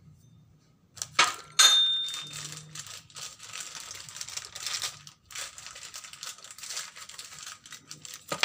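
Two sharp metal clanks, about a second in, as a Honda Beat crankshaft half is set down on the steel bed of a hydraulic press; the second rings briefly. Several seconds of uneven scratchy handling noise follow, with a sharp click near the end.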